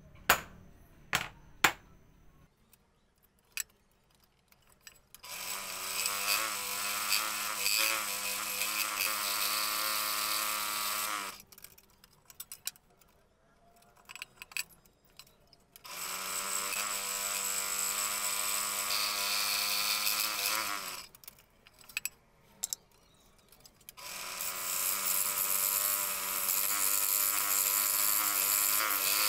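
A few sharp wooden clicks as wooden toy wheels are set down on a cutting mat, then a scroll saw running steadily in three stretches of several seconds each, stopping in between, as its blade cuts a thin wooden ring for a toy tyre.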